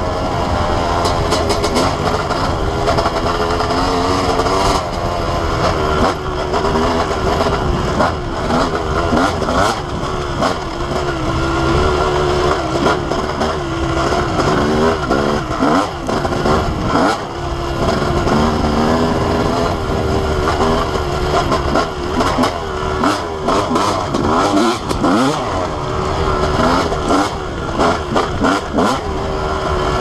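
Honda CR250R single-cylinder two-stroke dirt bike engine being ridden hard, revving up and falling back over and over as the throttle opens and closes, with scattered clicks and knocks from the trail.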